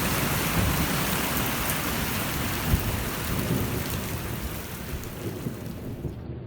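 Heavy rain pouring down during a thunderstorm, with a low rumble underneath; the sound slowly fades out toward the end.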